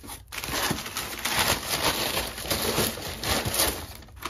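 Paper and cardboard packaging rustling and crinkling as it is handled, in irregular bursts of noise that start about a third of a second in and die down near the end.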